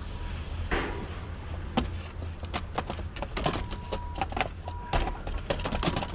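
Rummaging through curbside junk: a dense run of light clicks and knocks as items are moved around, over a steady low rumble.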